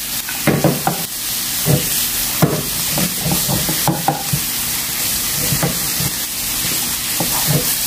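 Shrimp, squid and pen shell scallop sizzling in hot chili oil in a frying pan, stir-fried with a wooden spatula. A steady sizzle runs under irregular scraping strokes of the spatula against the pan, about one or two a second.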